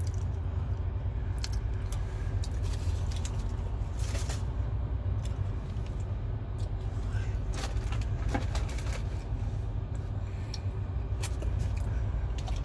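Fast-food paper wrappers and packaging crinkling and clicking now and then as they are handled inside a car, over a steady low rumble.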